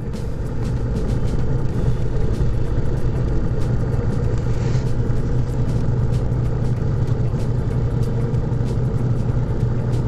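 Heavy armoured mine-clearing vehicle's engine running steadily under load while its front rotor churns through mud and water, with a constant irregular clatter of strikes.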